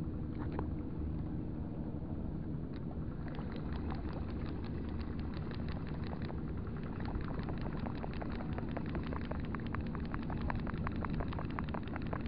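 Luke Herod 1000 spinning reel being cranked to retrieve a cast spoon lure, its handle turning with a rapid run of fine ticking that starts about three seconds in. A steady low engine hum runs underneath.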